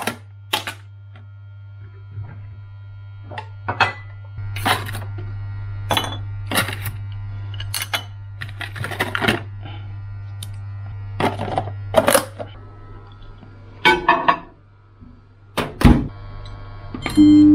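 Sharp clicks and clacks of a plastic food tub, its lid and wooden chopsticks on a ceramic plate as frozen pieces of fried chicken are handled, about a dozen knocks scattered through, over a steady low hum and quiet background music.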